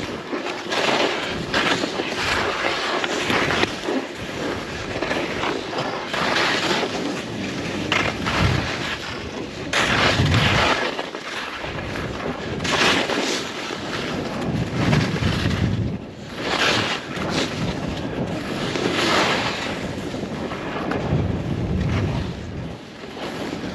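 Skis scraping and carving across packed snow, the sound swelling with each turn every couple of seconds, with wind buffeting the camera microphone in low rumbling gusts.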